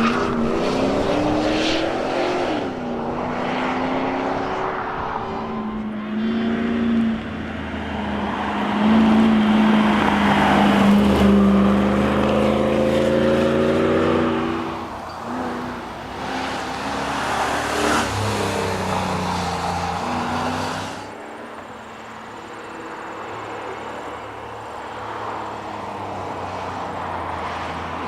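Mercedes SL500's V8 engine under hard acceleration on a rally stage, its pitch climbing and dropping again and again as it revs up and backs off. It is loudest in the first half and settles to a quieter, steadier run from about three quarters of the way through.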